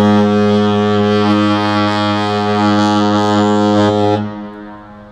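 Spectrum of the Seas' ship's horn sounding one long, deep, steady blast that stops about four seconds in, followed by its fading echo.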